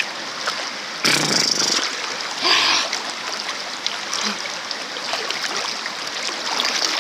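Water splashing and pouring during a child's bath, with two louder splashes or pours about a second and two and a half seconds in, over a steady trickling wash.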